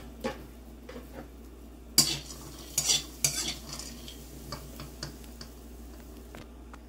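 Metal spatula stirring and scraping cashews, raisins and almonds as they dry-roast in a hot metal kadhai. Irregular scrapes and clinks of metal on metal, the loudest about two and three seconds in.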